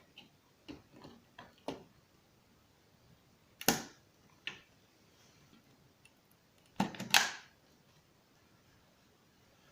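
Handling noises of computer parts and packaging: a scatter of sharp clicks and knocks, several small ones early, a louder one a little under four seconds in, and a louder cluster about seven seconds in.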